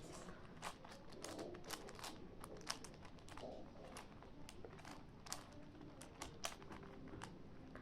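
Faint, irregular plastic clicks and clacks of a 5×5 Rubik's cube having its layers turned by hand while it is being scrambled.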